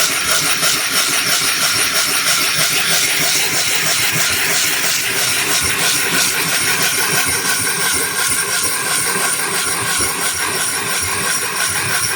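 Snapped edge of a cut glass bottle rubbed by hand on wet 50-grit silicon carbide paper: a steady, gritty scraping hiss as the abrasive grinds the rough edge flat.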